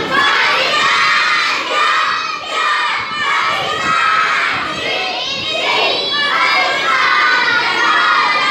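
A class of children shouting and cheering together, many loud overlapping voices, with a boy at the front shouting along.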